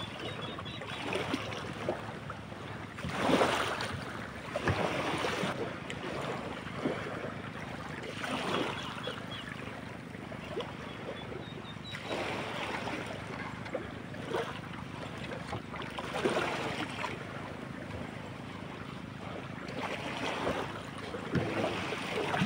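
Small sea waves washing at the shoreline around a wooden outrigger boat, swelling every few seconds, with wind buffeting the microphone.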